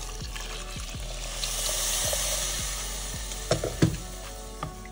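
Water poured into a hot pressure cooker over a sautéed vegetable, chickpea and dalia mixture, hissing and sizzling as it meets the hot pan. Near the end, a few sharp knocks of a wooden spoon against the cooker as it is stirred.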